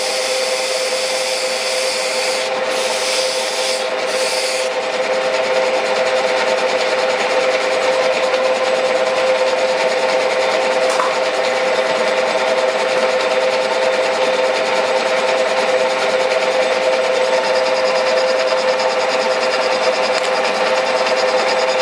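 Metal lathe running at a steady speed, spindle turning a large machined disc: a constant hum with a hiss over it. A higher hiss comes in for the first few seconds and again near the end.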